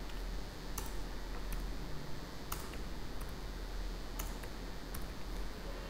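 Computer keyboard keys clicking now and then, about six sharp clicks roughly a second apart, over a faint steady low hum: copy-and-paste keystrokes duplicating a line of code.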